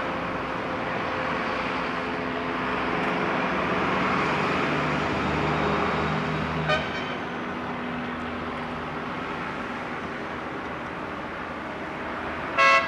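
Blackpool Balloon double-deck trams running on street track amid road traffic, a steady rumble and hiss. A short horn toot sounds about halfway through, and a louder, brief horn toot near the end.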